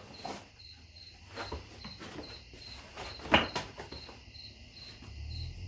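A cricket chirping in a steady, evenly pulsed high trill, with faint clicks and rustles from handling a cardboard package and one louder short handling noise about three and a half seconds in.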